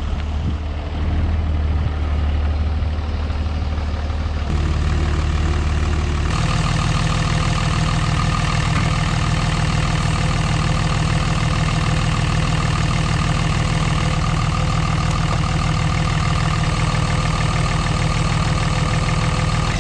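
Dodge Ram 2500's 5.9 L Cummins turbo-diesel inline-six idling steadily, with a shift in its tone about four and six seconds in. The newly fitted AC compressor it drives runs quietly, no longer growling.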